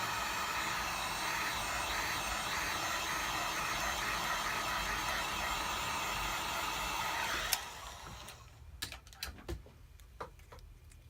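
Hot-air gun blowing steadily, heating the phone's back-glass adhesive to soften it. It switches off with a click about seven and a half seconds in, followed by a few light clicks and taps.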